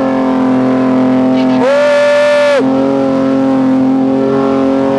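Toyota Land Cruiser engine heard from inside the cabin, running loud at steady high revs while driving on desert sand. About two seconds in, a higher-pitched tone slides in, holds for about a second and slides back out.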